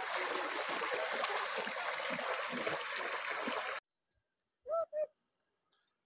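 People wading through a shallow, rocky stream: steady splashing of water around their legs, which cuts off abruptly after about four seconds. Near the end, two short pitched calls over a faint, steady high whine.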